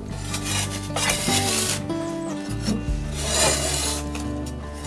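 Small metal ash scoop scraping through wood ash on the floor of a wood stove's firebox, in a few scraping strokes, with soft background music.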